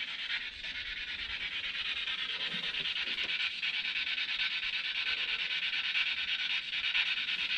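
Spirit box sweeping through radio frequencies: a steady hiss of static, chopped into rapid fragments by the scan.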